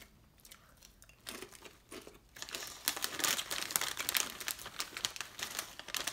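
Foil-lined Ruffles potato chip bag crinkling as a hand rummages in it, dense and loud from about two and a half seconds in, after a quieter start with soft chewing.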